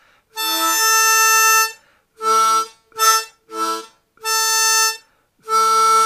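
Hohner Crossover diatonic harmonica in A playing tongue-blocked octave splits on the blow notes, two holes an octave apart sounding together. It is a short phrase of six notes: a long one, three short quick ones, another of middling length, and a long held one starting near the end.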